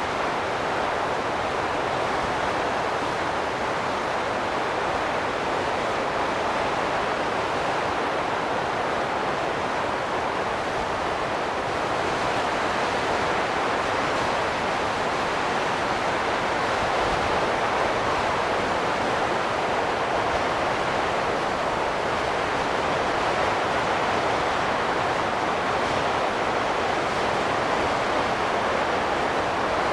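Wind blowing in gusts: a steady rushing noise that swells and eases only slightly.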